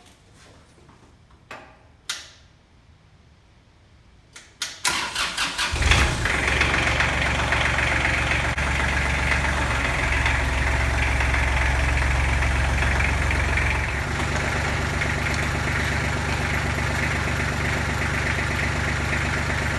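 Kubota diesel tractor engine cranked by its starter for about a second after a few clicks, catching and settling into a steady idle. About two-thirds of the way through, the running sound drops a little and holds at a slightly lower, different tone.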